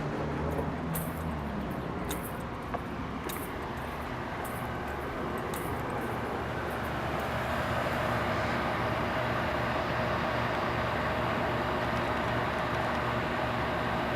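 Outdoor heat pump unit running: a steady hum and fan noise that grows a little louder about halfway through, where a steady mid-pitched tone joins in. A few faint ticks come early on.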